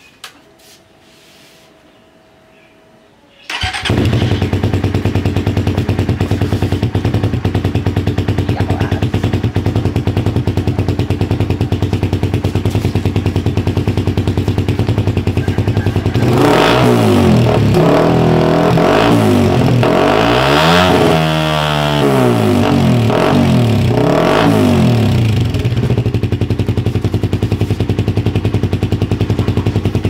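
Suzuki Raider 150 Fi's single-cylinder four-stroke engine, breathing through a VMAX aftermarket exhaust with its silencer insert fitted, starts about three and a half seconds in and idles steadily. About halfway through it is revved up and down several times, then settles back to idle.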